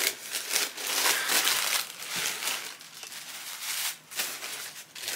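Packaging rustling and crinkling in irregular bursts as a shoe is unwrapped by hand.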